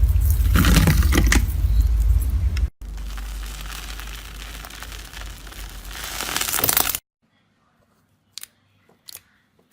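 Slime being squeezed and stretched, giving a dense crackly noise made of many small pops. It cuts off abruptly about 2.7 s in, resumes more quietly, and stops about 7 s in, leaving only a few faint clicks.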